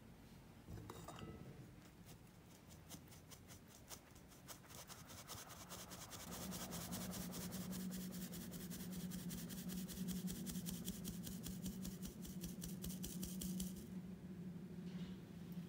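Flour being sifted through a stainless steel mesh sieve: a quick, even rasping and tapping of the mesh that stops about two seconds before the end. A low steady hum sits underneath from about halfway through.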